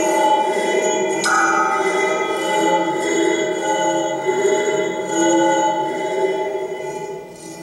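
Bent metal rods of a percussion sculpture ringing with many overlapping bell-like tones. A fresh strike about a second in adds new higher tones, and the ringing fades near the end.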